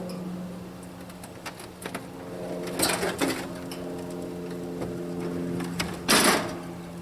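A steady mechanical hum runs throughout, with clanks and knocks of metal equipment being handled. A loud scraping rush comes about six seconds in.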